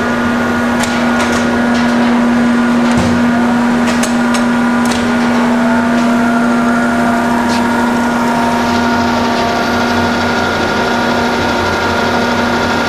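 Cincinnati Milacron 220-8 centerless grinder running, its 24-inch grinding wheel spinning: a steady hum with several steady higher tones. A few sharp clicks come in the first half.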